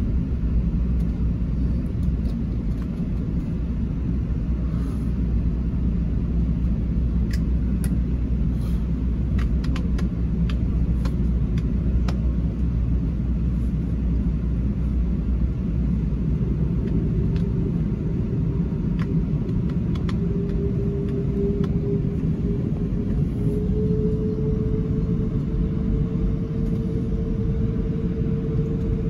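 Cabin noise inside an Airbus A380 taxiing onto the runway: a steady low rumble from its Rolls-Royce Trent 900 engines and the rolling gear. Over the second half an engine tone rises slowly in pitch.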